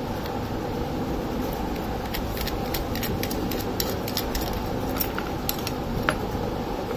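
Steady fan hum, with a run of small sharp clicks and ticks from a screwdriver and loose metal nuts and parts as a fog light is taken apart.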